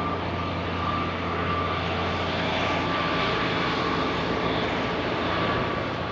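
Diesel train engine running steadily: a low droning hum with a faint, thin, high whine above it.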